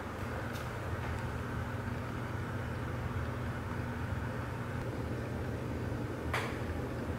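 Steady low machine hum with a light hiss, like a running household fan or appliance, with a faint click about half a second in and a sharper click near the end.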